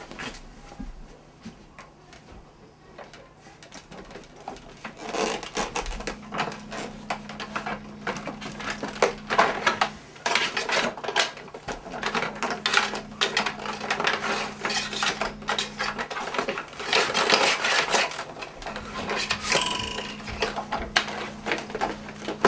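Upright vacuum cleaner, switched off, being handled and put away: irregular knocking, clicking and rattling of its plastic body, handle and cord. The handling is sparse for the first few seconds and busy after that, over a faint steady hum.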